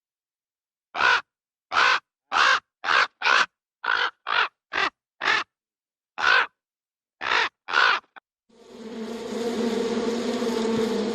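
About a dozen short, harsh animal calls in an uneven series, then a steady buzzing hum starts about eight seconds in.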